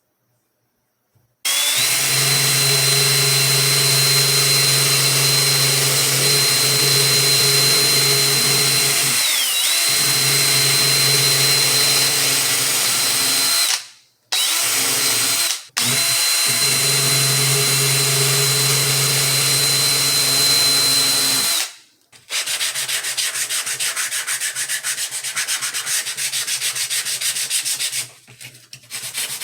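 A small handheld power tool grinds out the barrel channel of a Remington 597 rifle stock, so the barrel will no longer touch it. It gives a steady high-pitched whine that starts about a second and a half in and dips briefly in pitch as it bites. It stops twice for a moment past the middle, then cuts off. The last seven seconds are a fast, rough rubbing like sanding.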